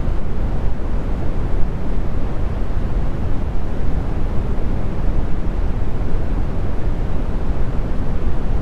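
Brown noise: a steady, loud, deep rumbling hiss, strongest in the lows and fading toward the highs, with no tones or changes.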